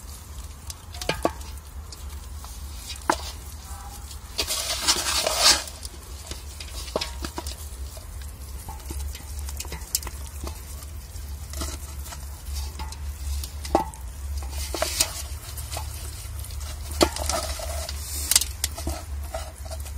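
Hands squishing and rubbing a wet spice marinade into raw whole chickens in a metal pot: irregular wet squelching with scattered sharp clicks. A longer, louder burst of squishing comes about five seconds in.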